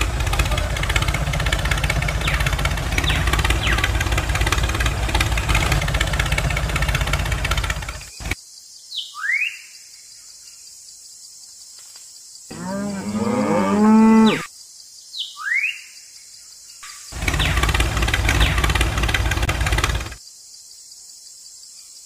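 Tractor engine running, cutting off about eight seconds in. Then come two short rising chirps and a cow mooing once, which is the loudest sound. The engine sound returns for about three seconds near the end.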